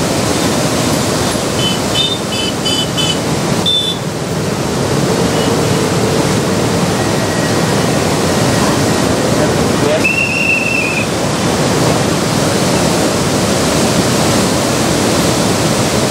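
Krishna River in flood, its water rushing and churning in a steady, loud noise. A few short high-pitched tones sound about two seconds in, and a longer high tone about ten seconds in.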